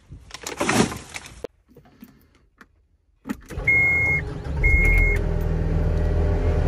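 A brief rustle of handling, then a skid steer's engine is started with the key about three seconds in: two short warning beeps sound as it comes to life, and it settles into a steady run.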